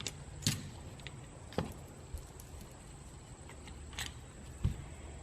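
A few light, scattered clicks and knocks over a low steady hum, typical of small parts being handled and set down.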